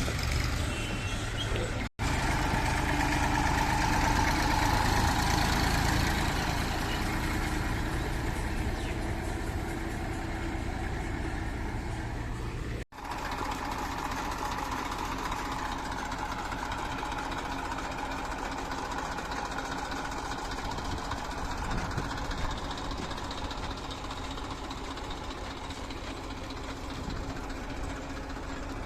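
Heavy diesel machinery engine running steadily, somewhat louder between about two and six seconds in. The sound drops out for an instant twice.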